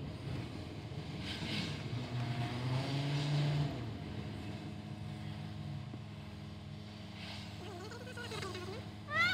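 Steady low hum of a car's engine and tyres heard from inside the cabin as the car slows to a stop in traffic, with a steady drone setting in about halfway through.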